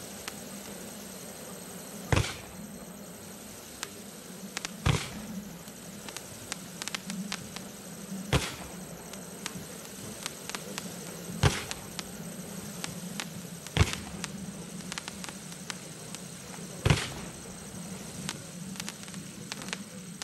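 Consumer fireworks cake firing 1.2-inch red strobe comets in volleys: six loud launch reports about three seconds apart, with many faint crackles and ticks between them.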